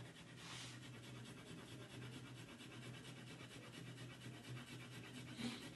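Faint, light strokes of a 2B graphite pencil shading on paper, all in one direction.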